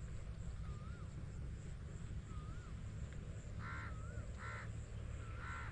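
Crows cawing: three short harsh caws in the second half, over a short wavering whistle that repeats about every second and a half and a steady low rumble.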